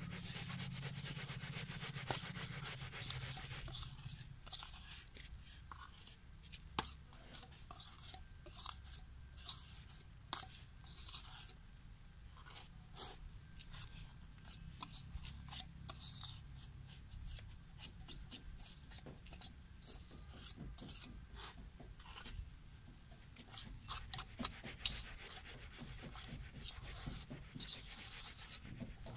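Hand tools scraping and rubbing against wet cement in a metal mould while a cement masala kundi is shaped by hand: irregular scratches and small clicks, growing busier near the end.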